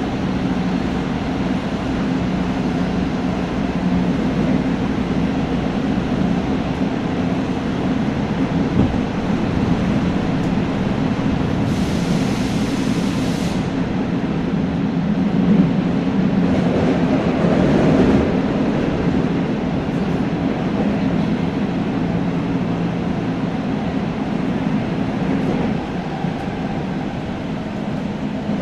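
Tokyo Metro 9000 series train running, heard from inside the car: continuous wheel-and-rail rumble with a steady low electrical hum. A brief high hiss comes about twelve seconds in, and the rumble swells a little a few seconds later.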